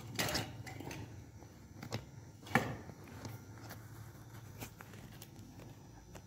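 A few faint clicks and knocks of metal engine parts being handled at an open motorcycle cylinder head during reassembly. The loudest knock comes about two and a half seconds in.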